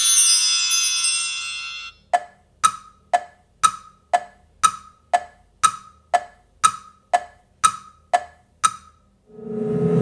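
Cartoon clock sound effect ticking evenly, about two ticks a second for some seven seconds. Before it, wind chimes ring and cut off about two seconds in. Near the end a low hum with a steady tone sets in.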